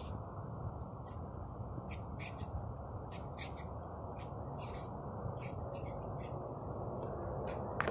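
Potato being peeled: a blade scraping strips of skin off a raw potato in short, quick strokes, about two a second and irregularly spaced.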